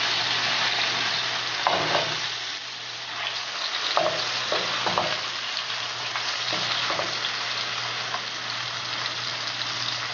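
Flour-coated mackerel halves sizzling steadily in hot oil in a frying pan, just turned over. A spatula scrapes and taps against the pan a few times.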